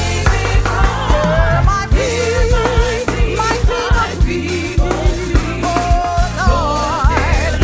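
Gospel music: a band of drum kit, bass guitar and keyboards playing a steady beat under a singer holding long notes with wide vibrato.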